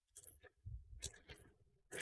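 Faint rustling, crinkling and clicking of a package being opened by hand, in short irregular bursts.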